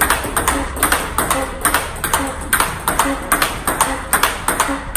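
Table tennis ball in a fast backhand block rally: sharp plastic clicks of the ball bouncing on the table and coming off the rubber of the paddles, several a second, in a steady, even rhythm.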